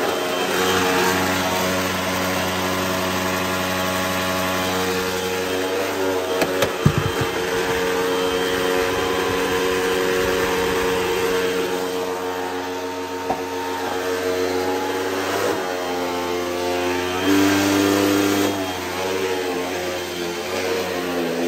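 Hoover WindTunnel upright vacuum cleaner running loud on carpet, its motor whine steady but bending in pitch now and then as the head is moved and the airflow changes. A few sharp clicks about six to seven seconds in.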